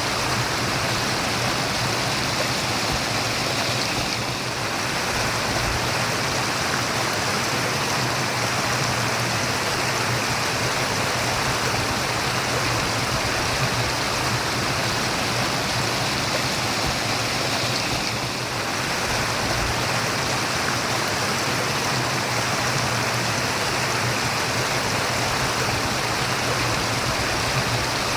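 Running water of a stream, a steady rushing murmur that eases slightly twice for a moment.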